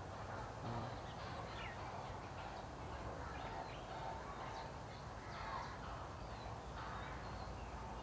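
Birds calling in the background: scattered short chirps and quick downslurred notes, with a few lower harsher calls, over a steady low rumble.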